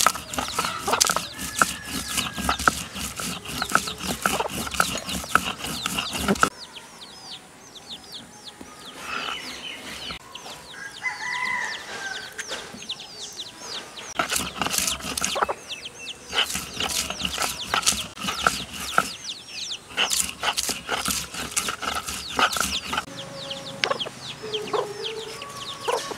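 Domestic chickens clucking, with small birds chirping high and many sharp clicks and taps. The background drops quieter about six seconds in and picks up again about fourteen seconds in.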